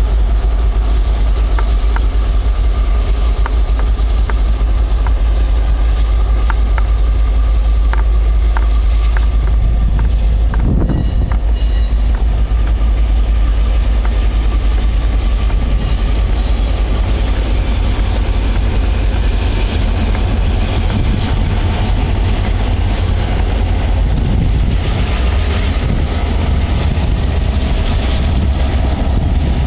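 A freight train hauled by three EMD diesel locomotives rolls past, with a steady low rumble and a run of short wheel clicks over the rail joints early in the passage.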